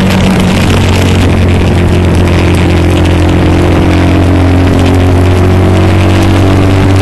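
Bobber motorcycle's engine running steadily while the bike cruises along at an even speed.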